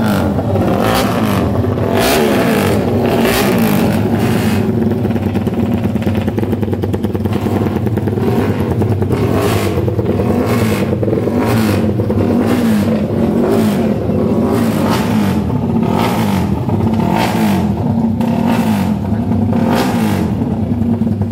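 Several racing motorcycle engines running at once, their pitch rising and falling over and over as they rev up and drop back through the gears.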